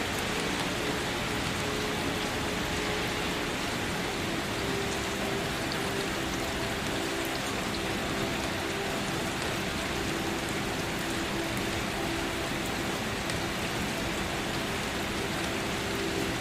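Steady rain falling and pattering on a surface, an even hiss that does not change. A few faint steady low tones sit underneath it.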